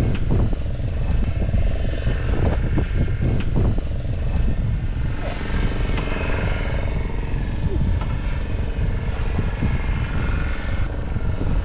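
Fishing boat's engine running steadily with a low rumble.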